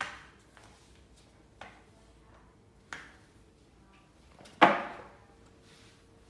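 A lightweight sweeper mop clacking against a hardwood floor: four sharp knocks, the loudest about four and a half seconds in.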